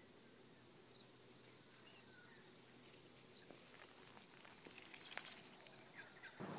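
Near silence with faint rustling patter of cats scampering over dry pine needles, growing busier about halfway through, and a few faint short high chirps.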